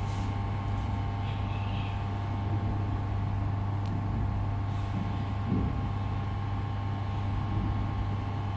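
Steady machine hum, a deep electrical drone with several steady higher tones above it, with one faint click about four seconds in.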